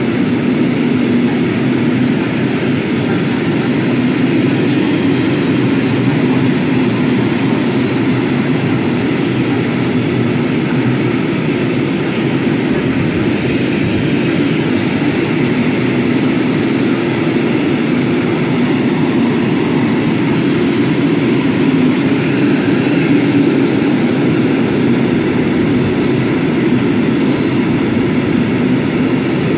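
Freight train of rail tank wagons rolling past, a steady noise of steel wheels running on the rails.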